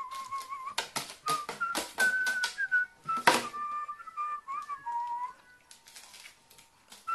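Background music carrying a whistled melody that steps between notes, with a number of short, sharp clicks and taps scattered through it, the loudest about three seconds in.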